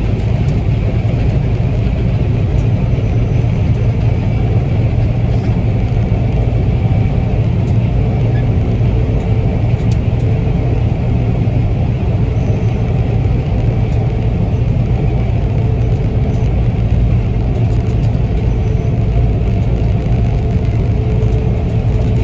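Gleaner combine harvester running steadily in the field, a continuous low rumble with a faint steady whine above it.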